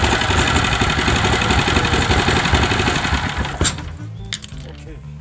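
Mitsubishi GM182 small four-stroke engine running steadily after a valve clearance adjustment, cutting off abruptly about three and a half seconds in; quiet background music follows.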